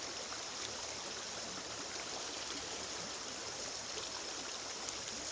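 Heavy rain falling steadily, a continuous rushing hiss with faint scattered drop ticks; it cuts off abruptly near the end.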